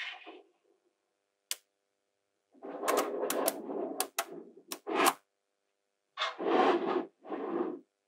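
Small magnetic balls clicking and rattling as rods of them snap together side by side: a single sharp click about a second and a half in, then a flurry of clicks and rattling, and near the end three shorter rattles.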